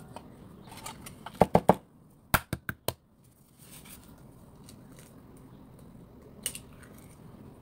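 Sharp clicks and knocks as eggs are handled and cracked over a stainless steel mixing bowl: two quick clusters in the first three seconds, then a single tap near the end as an egg is cracked against the bowl's rim.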